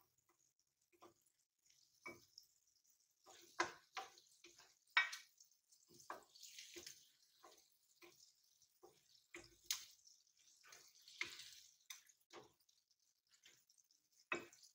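Hot oil in a wok crackling faintly and dripping as fried chicken pieces are lifted out with a spatula, with scattered light clicks and taps of the spatula against the pan.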